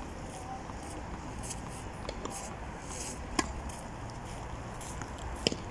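Steady low outdoor hum with two sharp knocks, one a little past the middle and one near the end, about two seconds apart.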